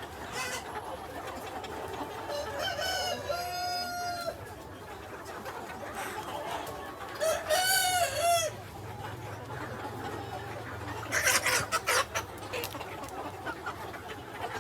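Free-range chickens: a rooster crows twice, about three seconds in and again about eight seconds in, the second crow louder, then a quick run of short, sharp clucks near the end.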